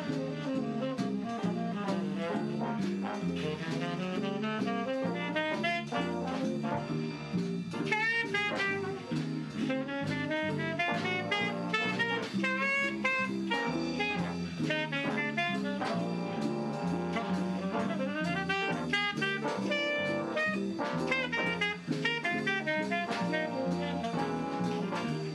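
Big-band jazz instrumental: saxophones and brass playing a swinging melody over a steady rhythm section.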